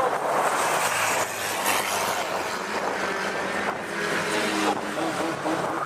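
Nissan Micra banger race cars' engines running and revving around the oval, with a steady noisy wash of engine and tyre sound; the pitch rises in the second half.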